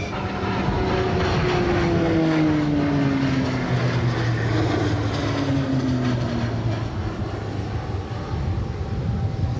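KAI KT-1B Woongbi turboprop trainer flying past, its propeller and engine note falling steadily in pitch for about six seconds as it goes by, then settling into a steady drone.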